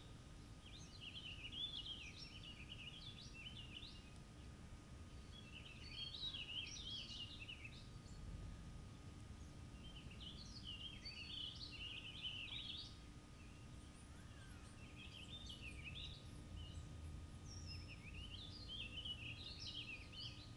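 A songbird sings a rapid, jumbled warbling phrase of two to three seconds, five times, about every four seconds, over a faint low outdoor hum.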